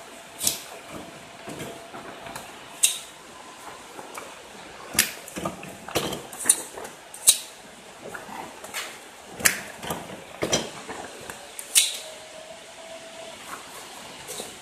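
Calendar clip machine being worked: sharp clacks and clicks, about a dozen, spaced unevenly.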